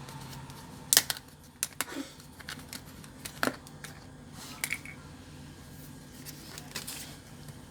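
Scattered sharp clicks and light knocks of small objects being handled, the loudest about a second in, over a low steady hum.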